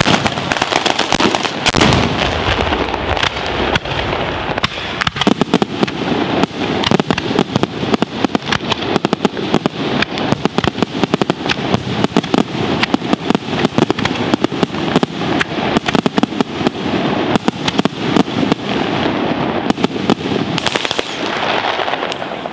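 Ground-level firework battery in the Italian 'batteria alla bolognese' style: chains of firecrackers going off in a dense, rapid, unbroken string of bangs and crackles, thinning a little near the end.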